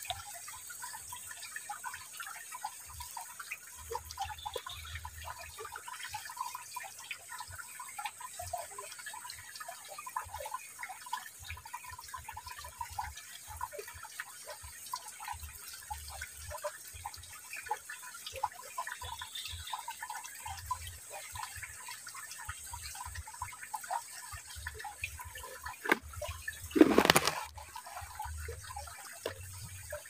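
Steady gurgling and trickling of a shallow flowing stream, with many small splashes and drips. Near the end comes a brief, louder falling swoosh.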